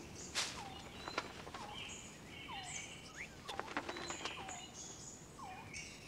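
Forest bird calls: a short whistled note that dips and rises, repeated about once a second, with short buzzy notes higher up and a few faint ticks.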